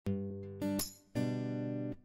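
Background music: an acoustic guitar strumming three chords, each left to ring. The first chord comes in suddenly, and the music stops short just before the end.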